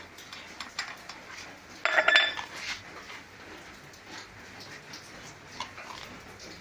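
Kitchen utensils and dishes clinking and knocking, with one loud ringing clatter about two seconds in and lighter taps scattered through the rest.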